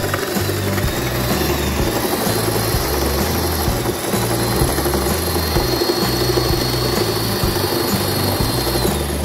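Electric hand drill running, its motor whine held steady, then dropping off briefly near the end and picking up again as the trigger is released and squeezed. Background music plays underneath.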